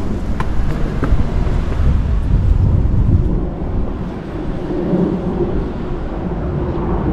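Wind buffeting the microphone outdoors, a heavy low rumble throughout. It is joined by a few footsteps in the first second or so, and by a steadier hum from about three seconds in.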